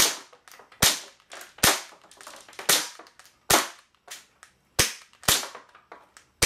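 Green-gas 1911 airsoft pistol firing single shots, about seven sharp pops at roughly one a second with uneven gaps, with fainter clicks between them.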